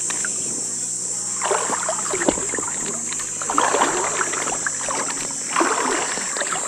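Water sloshing and splashing around a float tube in three short bursts about two seconds apart, over a steady high drone of insects.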